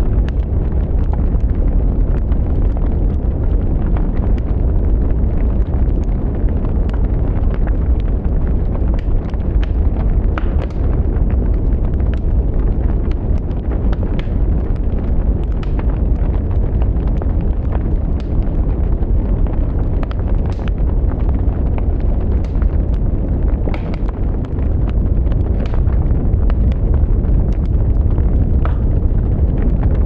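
Wood fire burning with a steady low rumble of flames and frequent, irregular sharp crackles and pops of the burning wood.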